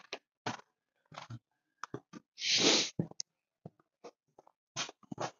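Handling noises: a scatter of short clicks and knocks, with one louder rustling burst about halfway through.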